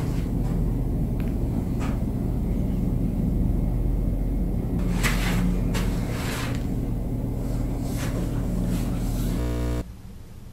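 A steady low rumble with a few short hissing surges, which cuts off suddenly about a second before the end.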